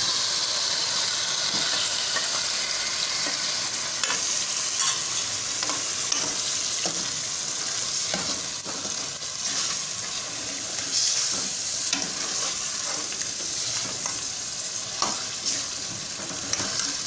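Raw chicken pieces sizzling and frying in hot masala with ghee and butter, while a metal ladle stirs them round the metal pot with scattered scrapes and knocks.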